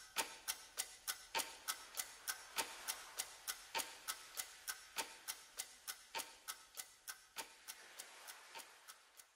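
Steady clock-like ticking, about three sharp ticks a second with every fourth tick stronger, fading out near the end.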